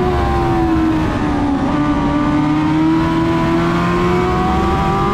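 Dwarf race car engine running at speed; its pitch sags over the first two seconds as it eases off, then climbs steadily as it accelerates again.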